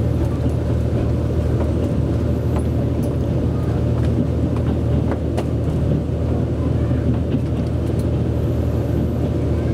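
Steady low rumble of a KiHa 72 diesel railcar heard from inside its passenger cabin as it runs in slowly to a station, with a few short clicks scattered through.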